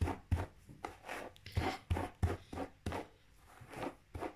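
A hairbrush raked quickly through long hair, about three brisk strokes a second.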